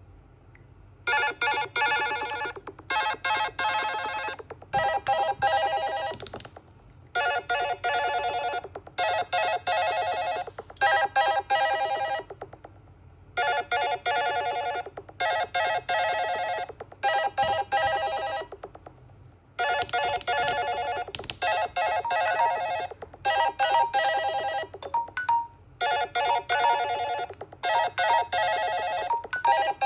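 A smartphone alarm tone playing: a bright electronic melody of quick notes, the same phrase repeating about every six seconds with short gaps, starting about a second in.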